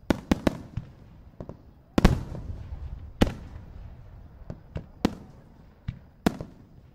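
Aerial firework shells bursting in an irregular string of sharp bangs, with heavier booms about two seconds in, at about three seconds and near the end, each trailed by a rumbling echo.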